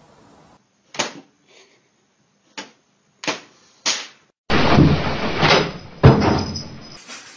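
A few sharp knocks about a second apart, then a louder noisy clatter with a heavy bang near the end.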